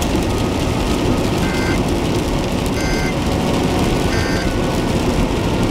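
Steady road and engine noise inside a moving vehicle, with three short two-tone electronic beeps about a second and a half apart.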